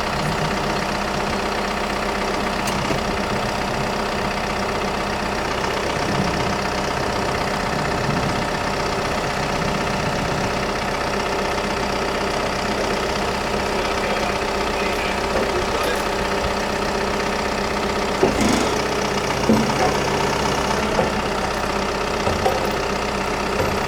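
An engine idling steadily, with a few short knocks near the end.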